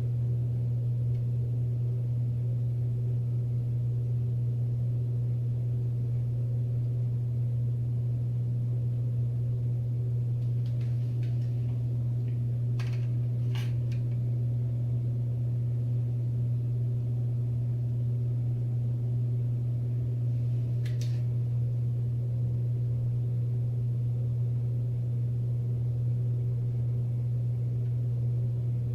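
A steady low hum at one constant pitch, with a few faint clicks about ten to fourteen seconds in and once more around twenty-one seconds in.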